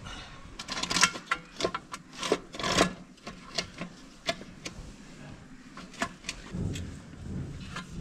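Metal parts of an automatic cattle waterer clicking and rattling as they are fitted by hand into its steel housing during a repair. A quick run of sharp clicks in the first three seconds, then scattered single clicks.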